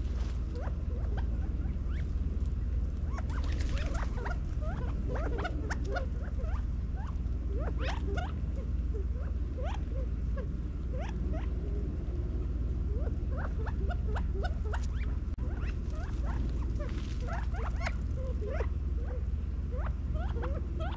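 Many short, soft, rising chirps and peeps from a flock of California quail feeding together, scattered throughout and coming in bunches, over a steady low rumble.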